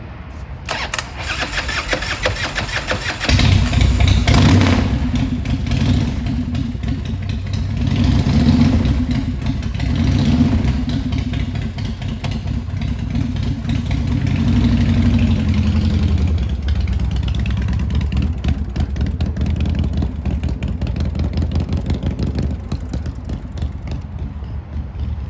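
2002 American Ironhorse Slammer's S&S V-twin engine, through Martin Brothers exhaust, turns over on the starter and catches about three seconds in. It is blipped up in revs several times, then runs lower and steadier after about sixteen seconds as the bike rides away.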